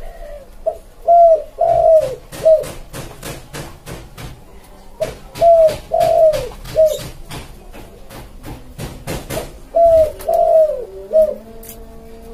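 Spotted dove (tekukur) singing its cooing song: three phrases of several short, falling coo notes, a few seconds apart. Quick, irregular clicks run under the middle part.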